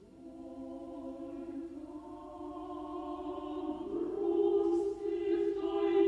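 Background music: a choir singing long held chords that come in at the start and swell, moving to a new chord about four seconds in.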